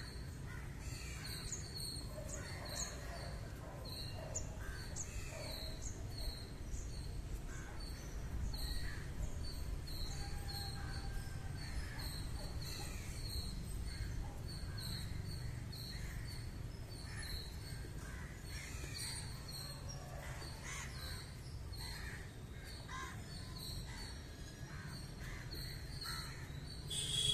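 Birds calling: many short calls and chirps scattered through, over a low steady background rumble.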